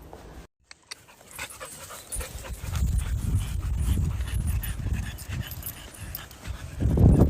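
A dog panting hard close by: a run of low, rhythmic breaths starting about two seconds in and loudest near the end.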